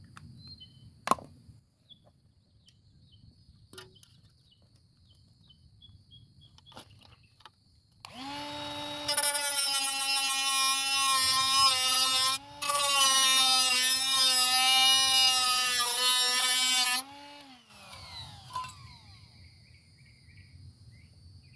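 Electric power tool cutting through a metal food can. The motor spins up about eight seconds in and whines steadily with a harsh, gritty edge while it bites into the metal. It stops for a moment midway, then runs on for about four more seconds and winds down.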